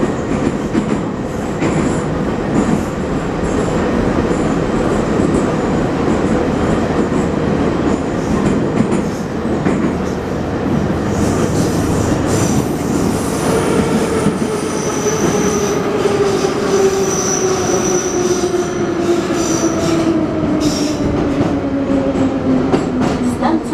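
Interior of a Moscow Metro 81-717.5 car running through the tunnel: a steady rumble of wheels on rail, with thin high squeals. From about halfway the traction-motor whine falls steadily in pitch as the train slows down.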